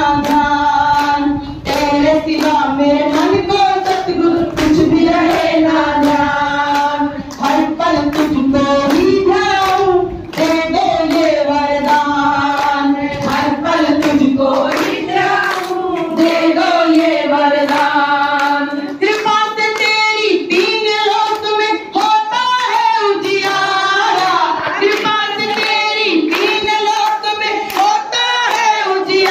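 Group of women singing a Hindi devotional bhajan together, clapping their hands in a steady rhythm.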